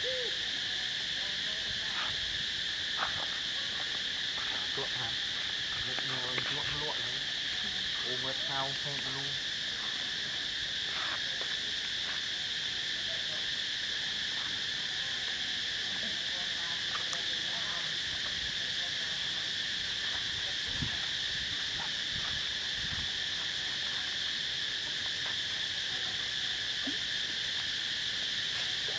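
A steady, shrill chorus of insects.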